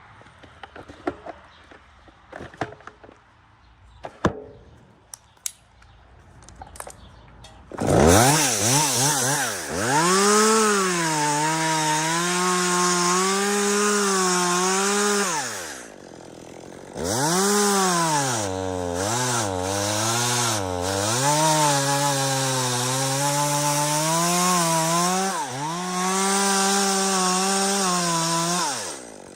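Light knocks and rustles, then about eight seconds in a chainsaw comes in and runs at full throttle cutting dead aspen wood. Its engine note sags and recovers as the chain loads up in the cut. It falls off twice, about halfway and just before the end, then picks up again.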